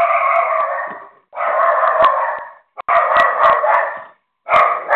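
A dog barking in four long, drawn-out bouts of about a second each, picked up by a video doorbell's microphone, which cuts off the highs and makes it sound thin.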